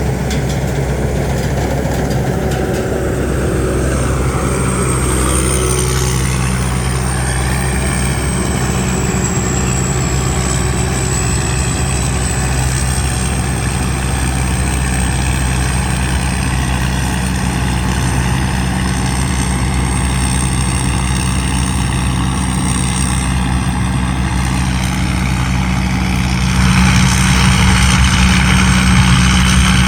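Combine harvester's diesel engine running steadily, with a thin high whine above it. It grows louder near the end.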